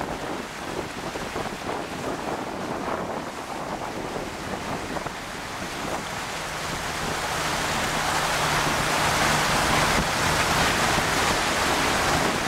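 Land Cruiser wading through deep floodwater: a steady rush and splash of the bow wave breaking against the front of the vehicle, growing louder about halfway through. A low steady engine hum runs underneath in the second half.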